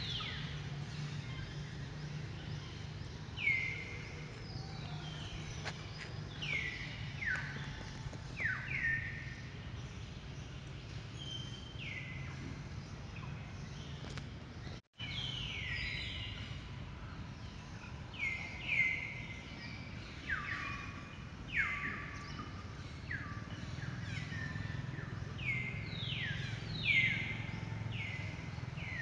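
Repeated short, high-pitched animal calls, each falling in pitch, come irregularly over a steady low hum. The sound cuts out for a moment about halfway through.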